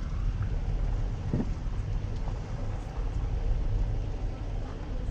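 Car driving slowly on a sealed road, heard from inside the cabin: a steady low rumble of engine and tyres. A brief high squeak about a second and a half in.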